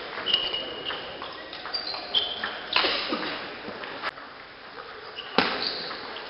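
Table tennis ball clicking off bats and table in a rally, with short high squeaks from players' shoes on the hall floor. A brief loud shout rings in the hall about three seconds in.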